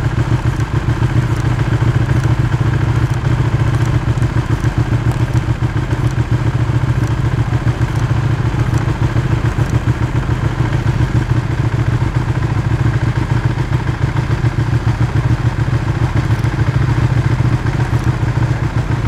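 Ducati sport bike's engine idling steadily: a low rumble with a fast flutter.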